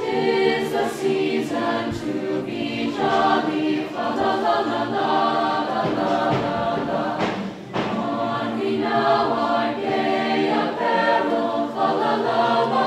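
School choir singing, many voices holding notes in phrases, with a short break about halfway through.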